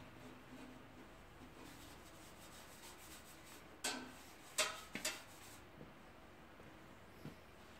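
Rubbing and scrubbing at a sheet-metal oil pan while it is cleaned, with three sharp knocks as a tool is handled about four to five seconds in.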